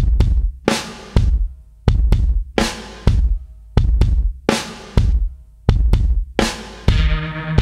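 Background music: loud drum hits in a steady beat, joined by sustained bass tones near the end.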